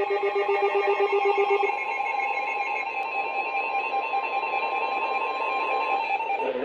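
Emergency alert tones from weather alert radios, several steady tones sounding together with a rapidly pulsing lower beep. The pulsing beep stops about two seconds in and a steady tone near 1 kHz cuts off near the end. The alert announces a severe thunderstorm warning.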